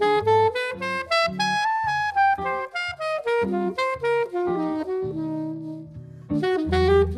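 Alto saxophone playing a quick, many-note jazz line over jazz guitar accompaniment. The saxophone breaks off for about a second near the end while the guitar carries on, then comes back in.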